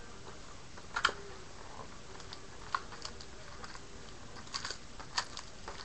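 Trading card box and foil packs being handled and opened: scattered crinkles and sharp clicks, the loudest about a second in.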